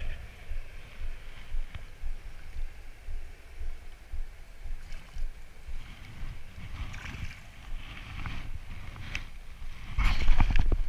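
A hooked fish splashing at the water's surface in short bursts, loudest near the end, over a low gusty rumble of wind on the microphone.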